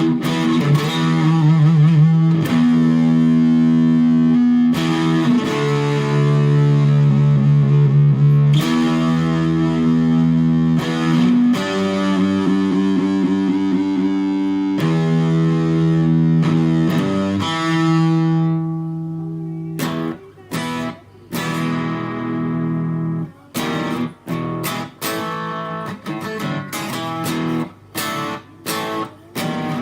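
FGN Stratocaster electric guitar played straight into a Fender Studio Valve SVH tube amp. Chords ring out for a few seconds each, then from about twenty seconds in come short, choppy strummed chords with brief gaps between them.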